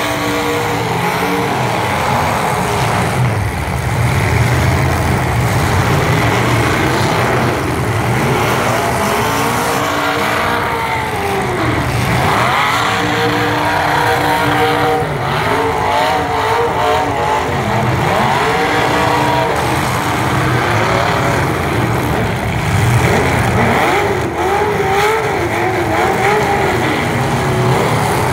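Demolition derby truck engines running hard, their pitch rising and falling again and again as they rev and ease off.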